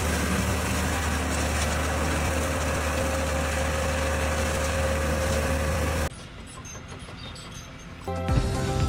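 A heavy engine running steadily with a low hum and a faint whine, cutting off suddenly about six seconds in. A quieter stretch follows, and near the end a different sound with steady tones begins.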